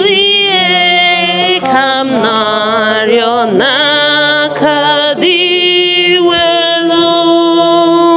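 Hymn singing at Mass: one voice loud and close, singing long held notes with a slight waver, with a lower steady part beneath it.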